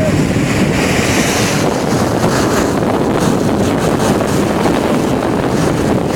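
Strong wind blowing across the microphone: a loud, steady rumbling buffet.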